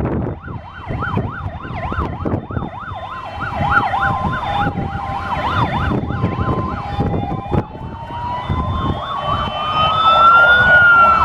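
Fire engine sirens sounding together: a fast warbling yelp of about three sweeps a second, then, about two-thirds of the way in, a slow wail that rises and starts to fall near the end. Wind buffets the microphone underneath.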